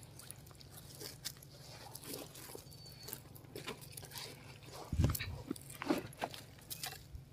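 Faint rustling and clicking of wire-mesh snake traps, wrapped in plastic feed sacks, being handled on dry ground, with a low thump about five seconds in.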